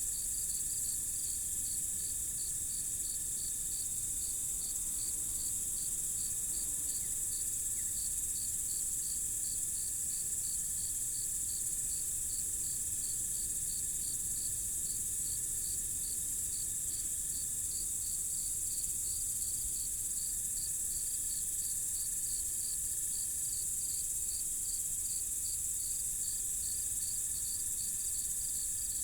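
Night insect chorus: crickets chirping in an even rhythm of about two chirps a second over a continuous high-pitched insect trill. A fainter steady drone lower down comes and goes.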